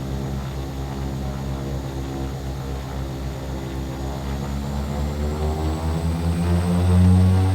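Aircraft engine throbbing steadily on the takeoff run, then rising in pitch and getting louder over the last few seconds as it powers up. A faint high whine climbs alongside it.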